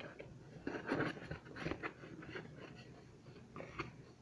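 Cardboard box flaps being pulled open and handled, giving a few short scraping, rustling bursts.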